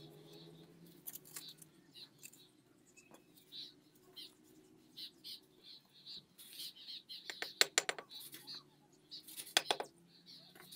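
Quick runs of sharp taps from a mason's hammer striking fired clay bricks as they are set and trimmed: a short burst about a second in, the loudest burst about three-quarters through, and another near the end. Small birds chirp throughout.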